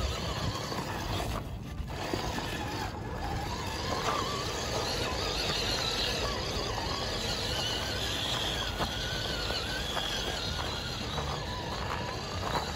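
Radio-controlled Traxxas TRX-4 rock crawler driving over loose rock and gravel: a high electric motor and gear whine, strongest in the middle, over a steady crunch and clatter of gravel.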